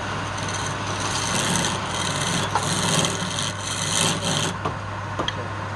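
Wood lathe motor humming steadily while a turning tool scrapes against the spinning wood in a series of harsh passes, followed by a few short clicks near the end.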